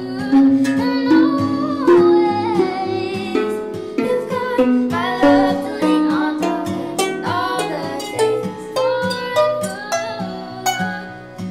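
Background music: an acoustic song with singing over plucked strings.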